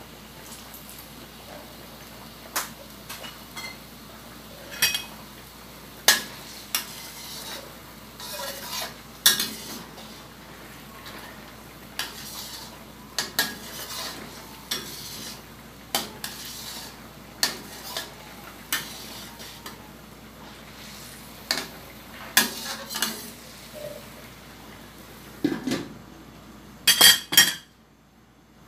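Metal spatula clinking and scraping against a steel wok while stirring simmering chicken adobo, with sharp strikes about every second or so. Near the end a steel lid is set onto the wok with a few loud clanks.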